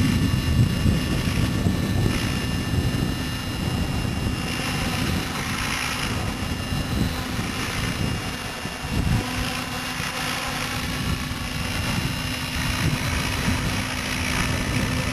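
Hurricane E550 radio-controlled helicopter in flight, its rotor and motor giving a steady hum, with wind rumbling on the microphone.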